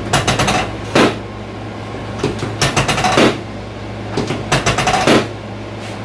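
Three rounds of quick clicks and pops as a chiropractor thrusts down with both hands on a patient's back during a prone spinal adjustment. Each round ends in a heavier thud.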